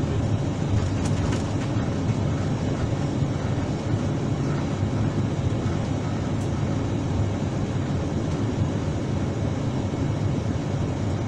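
Steady low rumble of an Airbus-family jet airliner's engines, heard from inside the aircraft as it taxis and lines up on the runway.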